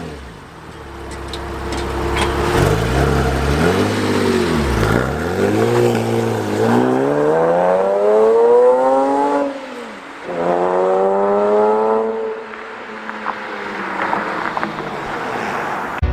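Porsche 987 Cayman S flat-six running through a Soul Performance header and cat-back exhaust, revving: a couple of short blips, then a long climb in revs that drops off sharply about ten seconds in, climbs again and falls away.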